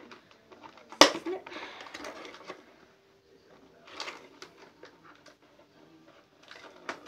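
Cardboard toy box and its packaging handled and opened by hand: a sharp click about a second in, then rustling, with more short taps and rustles around four seconds in and near the end.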